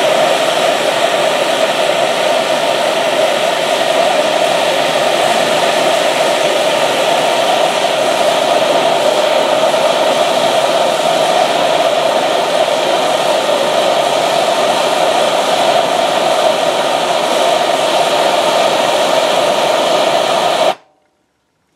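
Handheld gas torch burning steadily, its flame held on an aluminum joint to keep a braze puddle molten. The sound stops abruptly near the end.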